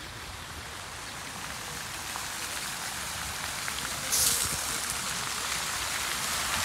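Park fountain jets falling into a pool: a steady splashing hiss of water that grows gradually louder, with a short, sharper hiss about four seconds in.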